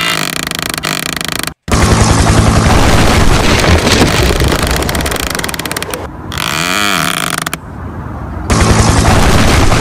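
Loud edited-in sound effects: a dense, rapid rattling noise that cuts out abruptly about a second and a half in and resumes, with a wobbling, warbling tone around the middle before the rattling returns near the end.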